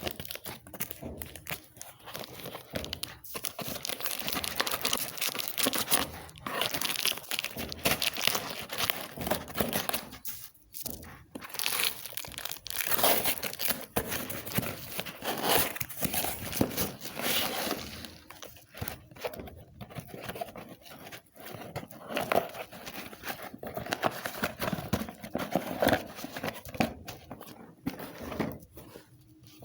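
Packaging being handled and opened by hand, crinkling and tearing in irregular bursts with short pauses.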